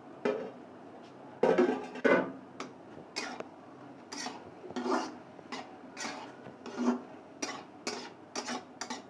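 Spatula scraping and tossing egg, chicken and vegetables around a wok while stir-frying. The strokes come about twice a second, with the loudest pair about two seconds in.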